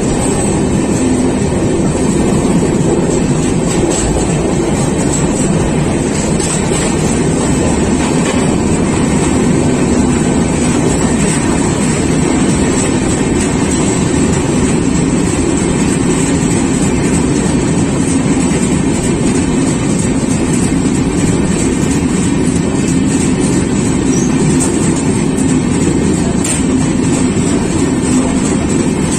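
Steady rumble and rush of a train running at speed, heard from at its open window.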